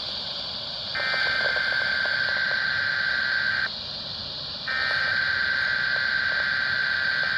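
Weather radio alert tone: one steady high beep sounding in long pulses of nearly three seconds with about a second's pause between, over steady radio hiss.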